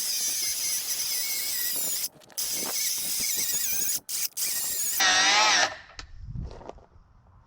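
Cordless 9-inch cut-off saw cutting into a solid foam-filled rubber tire, the blade squealing with a wavering pitch. It breaks off briefly about two and four seconds in, squeals loudest just after five seconds, then stops as the battery runs down.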